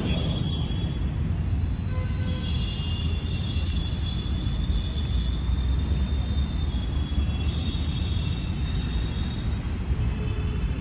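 Steady low outdoor rumble with faint high whistling tones drifting in and out.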